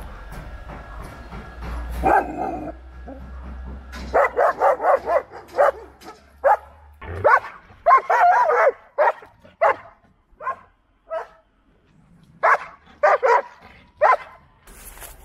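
A stray dog barking: quick runs of short barks, then single barks with pauses, starting about four seconds in, after a brief whine about two seconds in.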